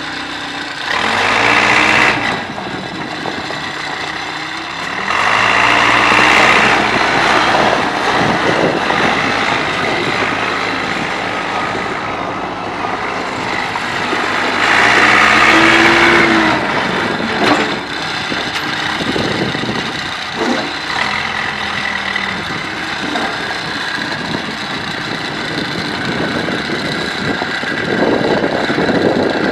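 Case 580D backhoe's diesel engine running, rising in pitch and loudness in several surges and settling back between them, as when the throttle is raised or the hydraulics load it. The louder stretches come about a second in, from about five to eight seconds, and around fifteen seconds.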